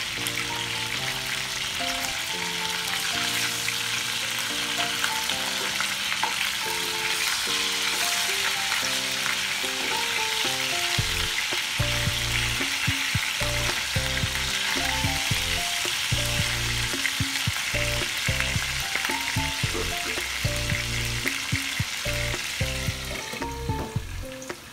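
Chicken pieces shallow-frying in hot oil in an open non-stick pan, giving a steady dense sizzle while a wooden spatula turns them. The sizzle eases near the end. Background music with a melody plays over it, and a bass beat comes in about halfway through.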